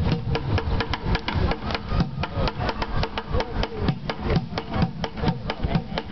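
Street drummer beating plastic buckets with sticks: a fast, steady run of sharp strikes.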